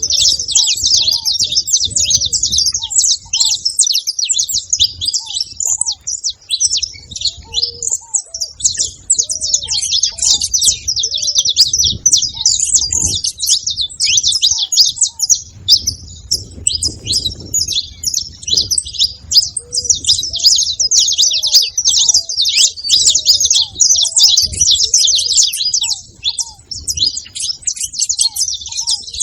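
Saffron finches chirping in a rapid, dense, unbroken stream of high-pitched notes, with short lower notes repeating underneath.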